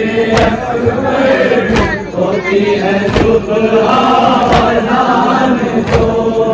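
A crowd of men chanting an Urdu noha in unison, with a steady beat of chest-beating (matam) strokes about every three-quarters of a second.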